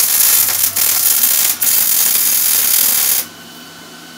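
Wire-feed (MIG) welder arc crackling steadily as steel frame tubing is welded, with two short breaks, cutting off about three seconds in.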